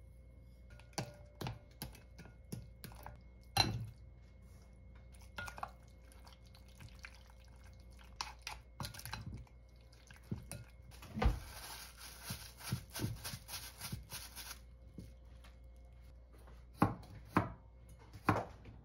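Kitchen prep sounds: scattered light clinks and taps of utensils against a glass mixing bowl, then a few seconds of wet squishing as sliced duck meat is kneaded into its marinade by hand. Near the end come a few sharp knife strokes on a wooden cutting board as garlic cloves are cut.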